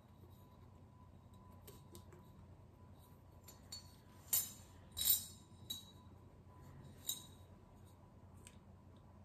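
Old coins clinking and rattling inside a coin bank as it is tilted and worked to get them out, with a few sharp metallic clinks, the loudest two near the middle.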